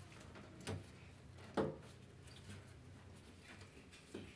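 Three light knocks and clunks from handling the machine and camera over a faint hum. The loudest knock comes about one and a half seconds in.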